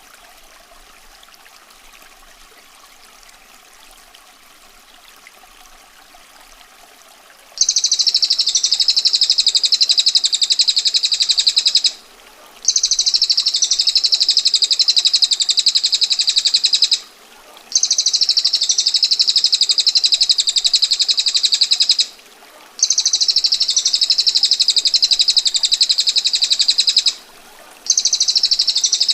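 A female prinia (prenjak betina) gives long, rapid, harsh trills, each about four to five seconds long, with short breaks between them. They begin about a quarter of the way in. Before that only faint running water is heard, and it stays underneath the trills.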